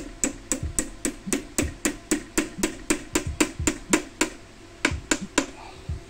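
Hammer tapping a metal hinge pin into a Xiaomi electric scooter's stem folding mechanism: a fast, even series of sharp taps, about six a second, stopping about five and a half seconds in.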